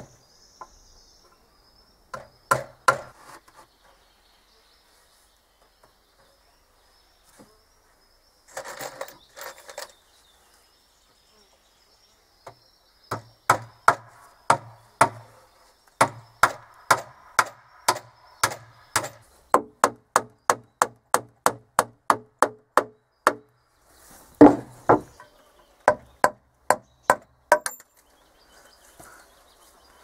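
Hammer blows on wooden boards, most likely driving nails: a few blows, then a steady run of about two blows a second, some of them with a ringing note.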